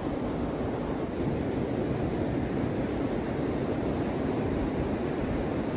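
Steady wash of sea surf breaking on a sandy beach, mixed with wind rumbling on the microphone.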